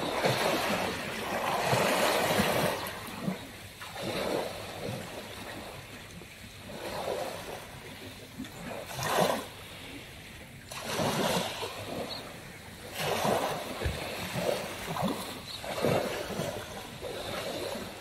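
Small sea waves breaking and washing up a pebble beach, the wash swelling and fading every one to three seconds.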